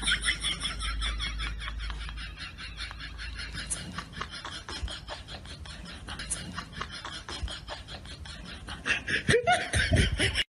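A person laughing softly in a long run of quick, breathy giggles, louder at the start and again near the end.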